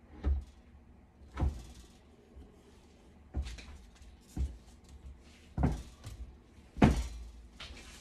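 Freshly cut cold process soap logs handled on a wooden wire log cutter and plywood board: about half a dozen dull knocks and thuds as the logs are pushed, lifted and set down, the loudest near the end.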